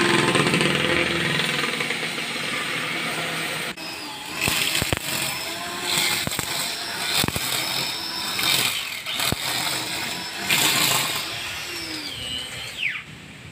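Gas string trimmer (brush cutter) cutting grass. It runs steadily at first, then from about four seconds in surges up and down unevenly with sharp ticks, and it fades near the end.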